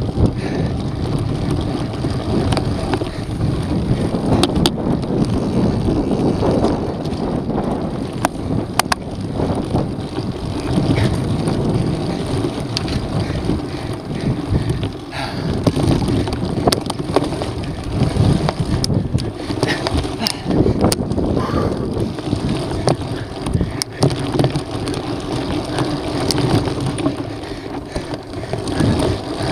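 Wind rushing over the microphone of a camera riding on a mountain bike, with knobby tyres rolling over a dirt trail. Frequent sharp clicks and rattles come from the bike jolting over bumps.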